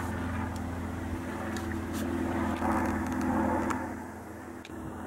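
A steady, low, engine-like hum with a few faint clicks, easing slightly about four seconds in.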